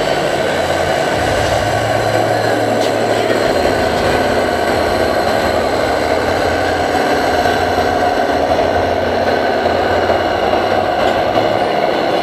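RC scale crawler's electric motor and gearbox whining steadily as it crawls slowly over loose soil.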